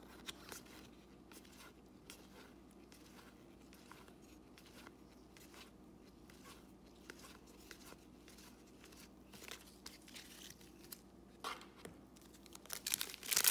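Soft flicks and slides of 2021 Topps Series 1 baseball cards being leafed through by hand. Near the end comes a louder crinkling of a foil card-pack wrapper being picked up and opened.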